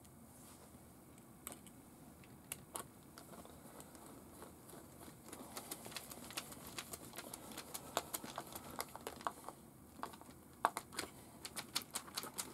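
Quiet, irregular small clicks and taps of plastic and metal, coming thick and fast from about five seconds in. A plastic wheel is being seated on the axle hex of a radio-controlled truck, and its wheel nut is run on with a nut driver.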